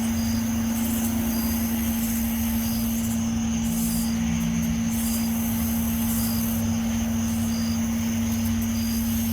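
A steady low drone held at one unchanging pitch over a low rumble, with faint short high beeps repeating about once a second.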